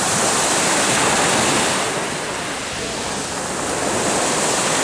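Waves of the Azov Sea washing onto the shore: a steady rush of surf that swells, eases a little about two seconds in, then builds again.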